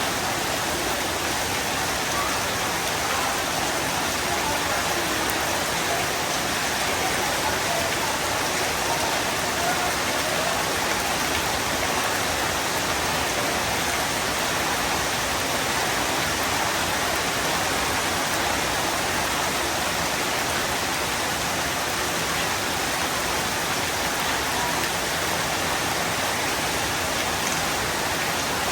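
Heavy rain pouring down steadily, an even, unbroken hiss of falling water.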